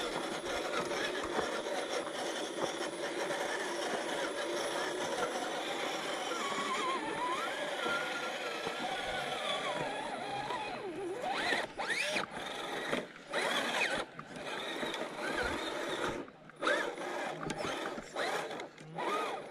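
Electric RC crawler's motor and gears whining, the pitch rising and falling with the throttle, then working in short stop-start bursts over the second half.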